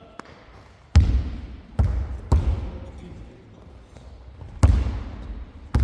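Basketball bouncing on a court floor: five sharp, echoing bounces at an uneven pace, three in the first half and two near the end.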